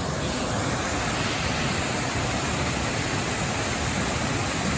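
Waterfall's water rushing steadily, an even hiss-like roar with no breaks.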